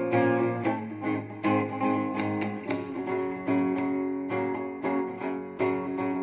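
Acoustic guitar playing on its own, chords plucked and strummed with sharp attacks, each left to ring.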